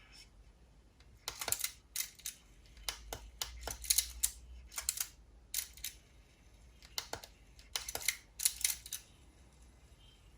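Irregular clusters of small sharp clicks and taps, as the Walkman cassette player's controls and mechanism are worked by hand, over a faint low hum.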